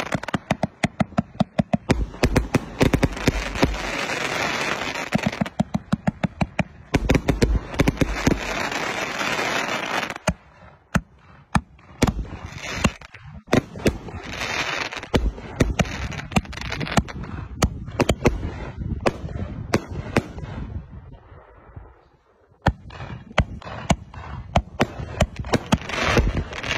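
A 520-shot fireworks cake firing shot after shot. Rapid sharp launches and bursts come over a dense crackling hiss for the first ten seconds or so, then the shots are more spaced out. There is a short lull about three quarters of the way through before a quick run of shots near the end.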